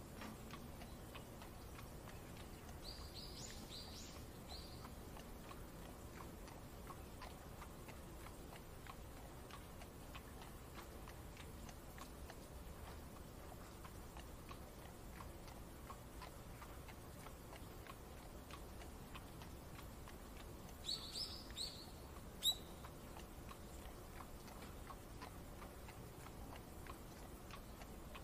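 Faint rain-and-carriage ambience: a soft steady patter with light irregular ticking. Two short bursts of high chirping, about 3 s in and again near 21 s, and a single sharp click just after the second.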